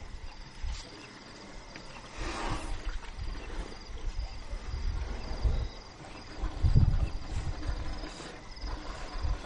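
Crickets chirping in a steady, evenly pulsing series at night, with irregular low thuds and rumbles over it, loudest about seven seconds in.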